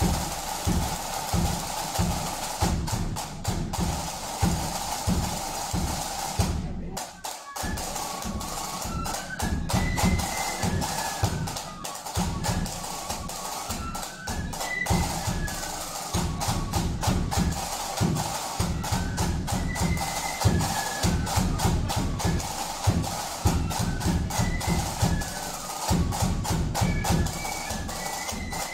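Flute band playing, with snare drums and bass drum. For about the first seven seconds the drums play alone; after a brief pause the flutes join at about eight seconds with a tune that steps up and down over the drumbeat.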